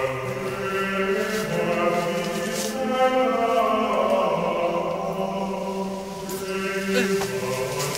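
Background film music of chant-like voices holding long, sustained notes that shift pitch now and then.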